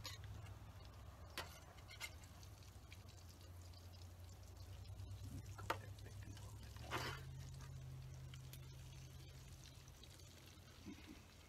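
Faint handling noises at a campfire cook site: a few light clicks and taps, and a short scrape about seven seconds in, over a low steady hum.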